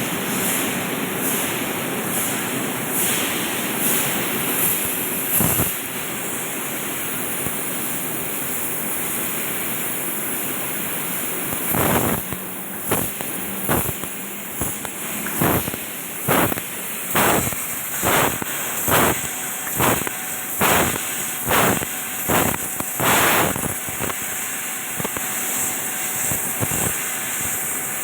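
CNC laser cutting machine at work: a steady hiss, and from about halfway a quick series of short sharp pops, a bit more than one a second, which then stop.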